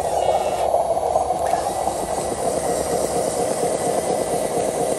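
RC dump truck's electric drive motor and gearbox running hard and steadily while its wheels spin in the mud. Its sound module gives one short reversing beep at the very start.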